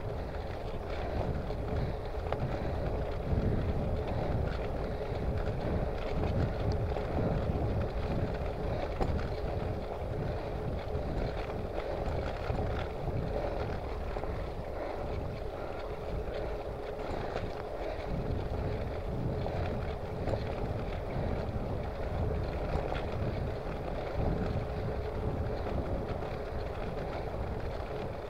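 Wind buffeting the microphone of a handlebar-mounted camera on a bicycle riding along a tarmac road, in uneven low gusts, with a steady hum underneath.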